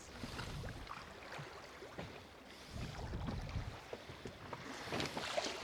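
Choppy sea water lapping and slapping against the hull of a small drifting boat, with wind noise.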